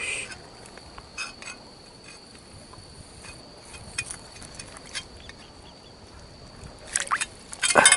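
Faint clicks and small water sounds as a hand tugs the line of an octopus lure in shallow seawater over gravel, with a steady high-pitched whine throughout. Louder splashing near the end.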